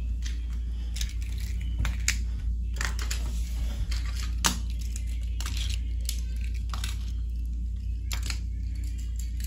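Irregular small clicks and taps of toy cars being set down on a wooden floor, the sharpest about halfway, over a steady low hum.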